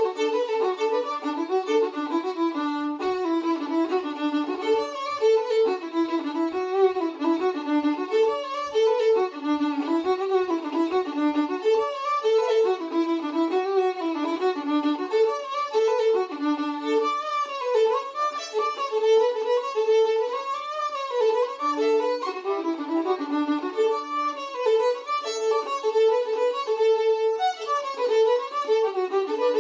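Solo fiddle playing an Irish jig in a steady run of quick bowed notes.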